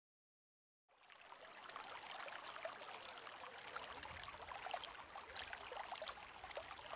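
Water sound effect: a steady patter of many small drops and trickles, fading in about a second in.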